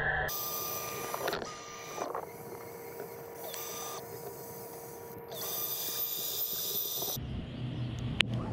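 Robotic pool cleaner's pump motor whirring with a steady whine, picked up underwater. About seven seconds in it changes to a lower hum, and there is a sharp click near the end.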